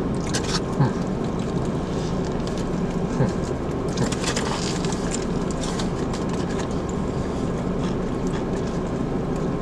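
Steady hum of a car idling, heard from inside the cabin, with a few brief crinkles of sandwich wrapper paper.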